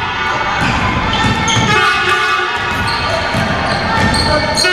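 Basketball being dribbled on a wooden gym floor, with sneakers squeaking in short high chirps and the echo of a large hall.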